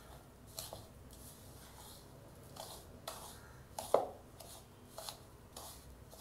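A bare hand squeezing and rubbing a crumbly mixture of ground green gram, roasted coconut and sesame bound with jaggery syrup in a bowl: a series of short gritty rustles about twice a second, with one sharper click about four seconds in.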